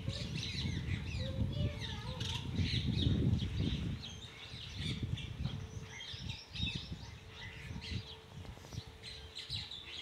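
House sparrows chirping over and over, several short overlapping chirps. A low rumble is loudest about three seconds in and fades out a second later.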